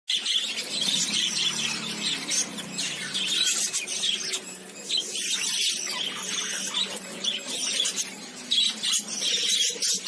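Budgerigars chirping and chattering, many calls overlapping, with a short lull about four and a half seconds in.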